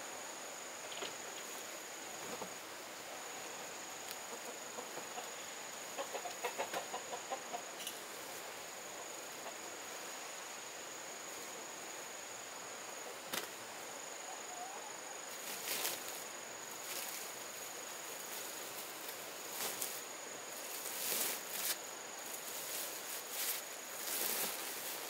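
Outdoor ambience: a steady high insect drone, with a quick run of about eight animal calls, like clucking, about six seconds in. Rustling and knocks come and go in the second half.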